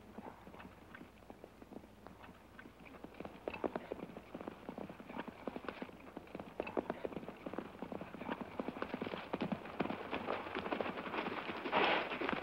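Hoofbeats of two horses galloping on dry desert ground, a rapid stream of knocks that starts faint and grows louder as they come closer, loudest near the end as they pull up.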